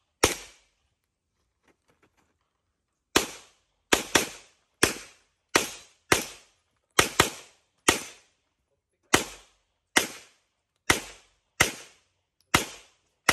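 A pistol firing: one shot, a pause of about three seconds, then some fifteen shots at roughly one every half second to a second, including a couple of quick pairs, each shot with a short echo.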